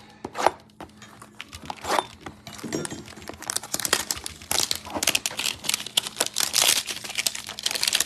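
Plastic wrapping crinkling and tearing as a trading-card hanger box is opened by hand. A few sharp clicks in the first couple of seconds, then dense crinkling from about three and a half seconds in.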